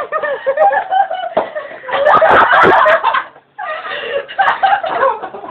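A group of people talking over one another and laughing, with a louder burst of laughter and voices about two seconds in.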